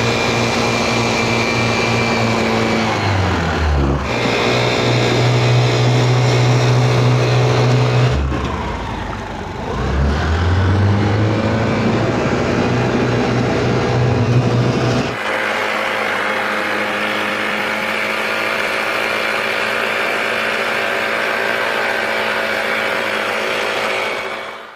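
Honda Activa scooter engine driving a scrap-built boat. It runs steadily, with the throttle eased off and opened again twice, its pitch dropping and then climbing back. About fifteen seconds in, the sound changes abruptly to a thinner, steady hum without the low throb.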